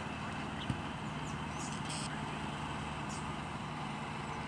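A distant engine running steadily, with one short thump less than a second in.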